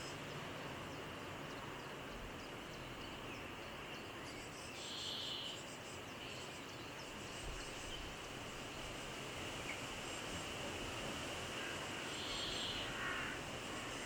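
Steady outdoor hiss of a field with a faint high steady note, broken twice by a short bird call, about five seconds in and again near the end, likely a crow's caw.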